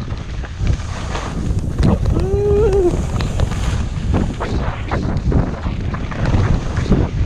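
Wind rushing over the microphone of a camera moving at skiing speed, a loud low rumble throughout. About two seconds in, a person's voice gives one short, wavering call lasting about a second.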